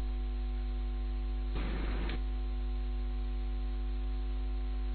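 Steady electrical hum with hiss from the recording, with a brief soft burst of noise about a second and a half in.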